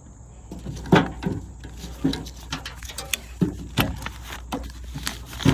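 Irregular knocks and clicks from handling a soft top's metal folding-frame bars, plastic wrapping and nylon straps, about one or two a second. The loudest knocks come about a second in and near the end.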